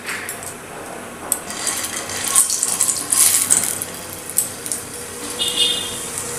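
Hot oil in a kadai sizzling as a stuffed pointed gourd (potol) is laid in to shallow-fry over a low flame. The hiss swells from about a second in, with a couple of sharp clicks.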